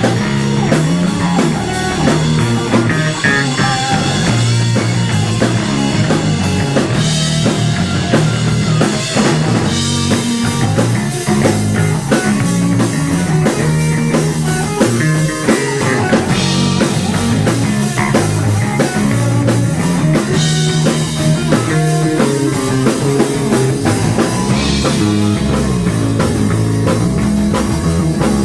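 Rock band playing: guitar over a steady drum-kit beat, in a psychedelic rock style.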